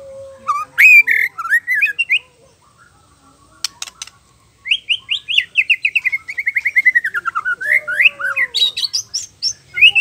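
Male white-rumped shama singing: a few short, varied whistled phrases, a pause of about two seconds, then a long fast run of notes sliding steadily down in pitch, followed by quick phrases that climb higher near the end.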